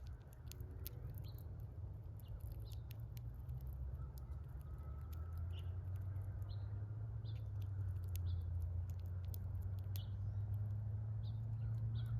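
Small birds at a feeder giving short, scattered chirps, mixed with frequent sharp clicks. Underneath runs a low rumble that grows louder toward the end.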